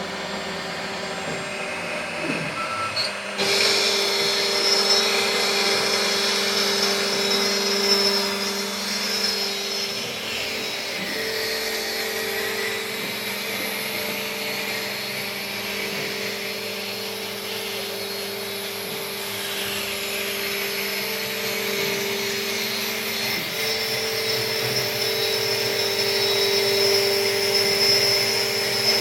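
CNC router spindle running at speed with a steady whine while cutting, over a rushing noise. The noise jumps louder about three seconds in and stays up.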